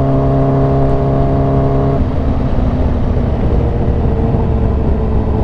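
Kawasaki Ninja H2's supercharged inline-four running at steady revs with a Competition Werkes exhaust. About two seconds in, the steady engine note falls away and leaves a rougher low rumble.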